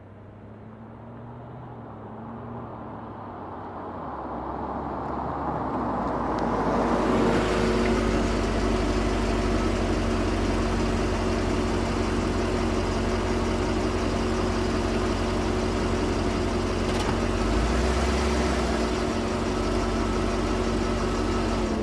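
A car pulls in, its engine growing louder over the first several seconds, then idles steadily with a constant low hum.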